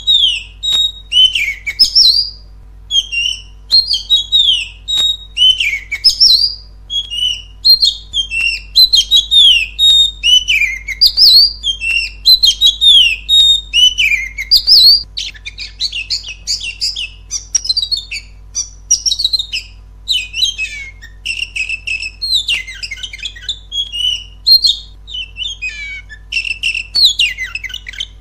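Oriental magpie-robin (kacer) singing loudly and without pause: a run of varied clear whistled phrases, many sliding downward, turning into faster, choppier chattering notes about halfway through.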